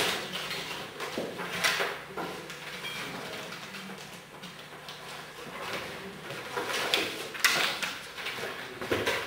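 Paper coupons rustling and sliding out of a cardboard box into a glass vase, with a few louder scrapes and knocks as the box is shaken and handled.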